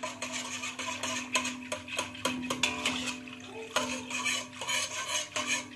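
A wire whisk stirring a thin, watery cocoa pudding mix in a stainless steel pot. Its wires make quick, irregular clinks and scrapes against the metal sides and bottom.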